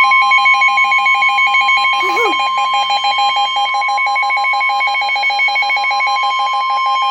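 Emergency weather alert tones: a steady high alarm tone, the Weatheradio Canada 1050 Hz warning tone, overlaid by a fast warbling alert signal that alternates rapidly between two pitches.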